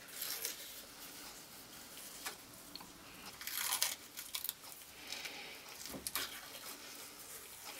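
Soft, wet tearing and squishing as the thin membrane is peeled off a raw lamb's liver, in a few faint scattered bursts, the clearest about three and a half seconds in.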